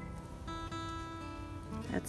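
Background music with acoustic guitar playing held notes.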